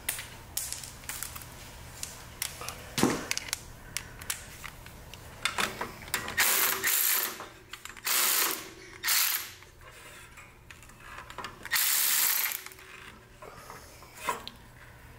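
Small cordless ratchet running in four short bursts as it drives a screw, with scattered clicks and knocks of tools and parts being handled between the bursts.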